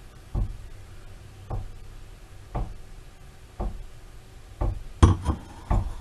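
Slow, even knocks on a hard surface, about one a second, then a quicker cluster of three near the end, the first sharper and brighter, as a wine glass is set down on the stone countertop.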